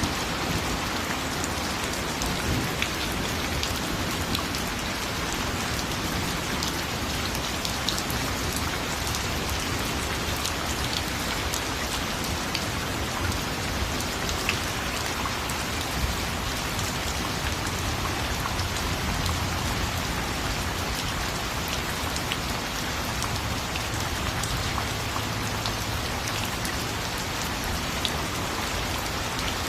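Steady rain falling, with the close patter of many individual drops hitting a surface.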